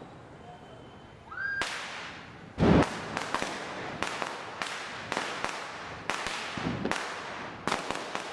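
Diwali firecrackers going off: a short rising whistle about a second in, then sharp bangs at irregular spacing, roughly two a second. The loudest is a deep boom near the three-second mark.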